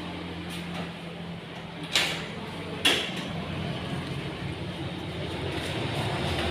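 Two sharp knocks about a second apart over a steady low hum.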